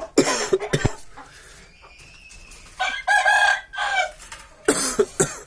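Chickens in a coop: a rooster crows once, a held call of about a second starting nearly three seconds in. Short, loud noisy sounds come near the start and again near the end.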